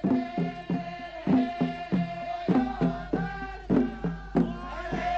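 Background music: a steady drum beat, about three strokes a second, under a long held melodic note.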